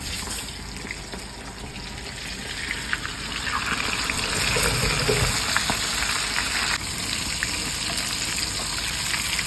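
A whole flour-coated snakehead fish deep-frying in hot palm oil in a wok. The sizzling starts suddenly as the fish goes in, builds over the first few seconds, then holds steady.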